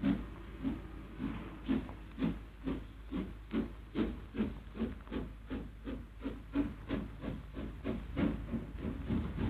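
LMS Princess Royal class steam locomotive moving off under its own steam: regular exhaust chuffs with steam hissing. The beats come about two a second and quicken slightly as it gathers speed.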